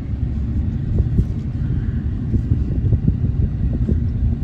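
Farm vehicle running with a steady low rumble.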